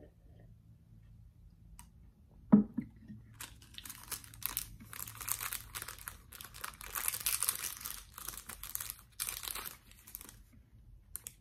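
A ceramic mug is set down on a table with a single thump about two and a half seconds in. Then a crinkly candy wrapper is worked open around a wrapped chocolate for several seconds.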